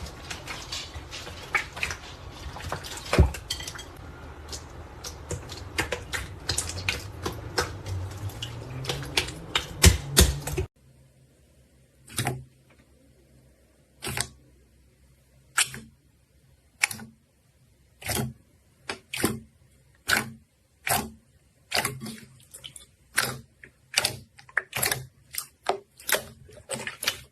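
Slime worked by hand, giving dense sticky crackles and clicks. About ten seconds in it switches abruptly to separate squelchy pops, about one a second at first and coming faster toward the end.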